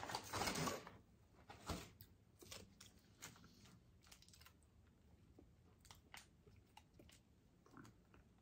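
Paper fast-food bag rustling for about a second, then faint, scattered crinkles and clicks of paper wrappers and napkins being handled, with soft chewing between them.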